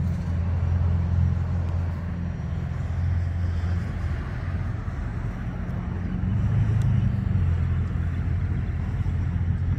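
Steady low rumble of vehicle engines and road traffic, swelling slightly about six seconds in.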